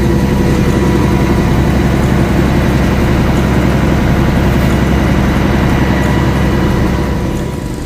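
A machine engine running steadily at a constant speed with a low, even drone, easing slightly near the end.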